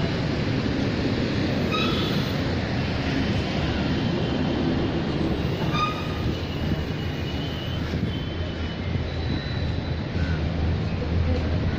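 Steady low rumble of outdoor city background noise, with a few brief high-pitched tones about two and six seconds in.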